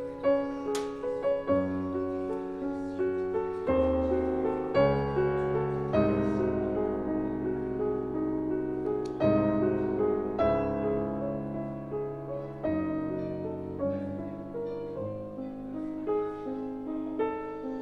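Background piano music, slow and gentle, with chords and single notes struck and left to fade.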